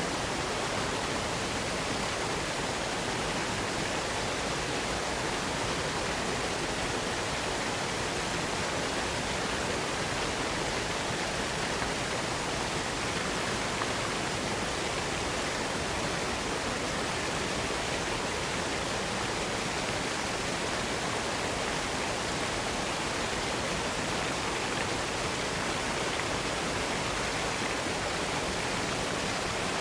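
Waterfall: water falling and splashing in a steady, unbroken rush, even from low to high pitches with no changes.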